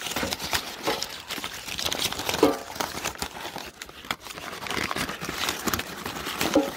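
Wrapping being crinkled and pulled off an object by hand: a dense, irregular run of rustles and crackles.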